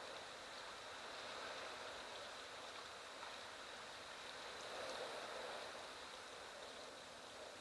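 Wind blowing steadily through dry bush and grass: an even hiss with small swells, and a faint steady high tone throughout.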